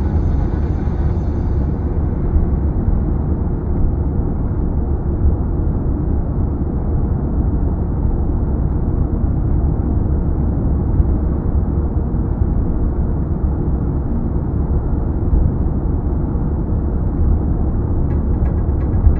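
Steady low rumble of a car driving at speed: road and engine noise heard from inside the cabin. Faint light ticks come in near the end.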